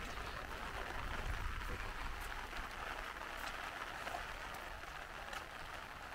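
Light rain falling, a steady soft hiss with a few single drops ticking.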